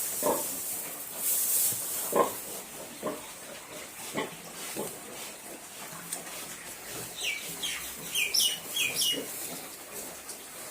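Duroc piglets grunting in short, separate grunts. Near the end comes a quick run of about five high, falling chirps from a bird.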